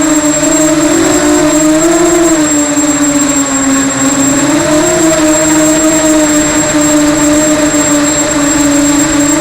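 Small electric FPV multirotor's motors and propellers humming steadily, the pitch wavering up and down a little with throttle, over a thin, steady high-pitched whine.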